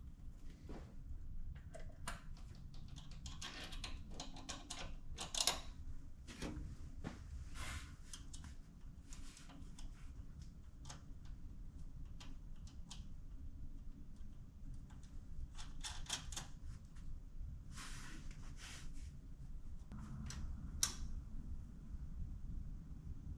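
Scattered clicks and short scraping rasps of hand-tool work on metal parts, irregular throughout, over a steady low hum.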